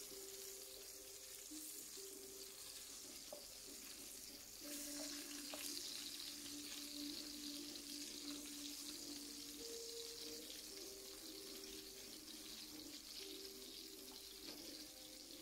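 Shrimp sizzling in hot oil in a frying pan, a steady hiss, with soft held notes of a slow background melody underneath.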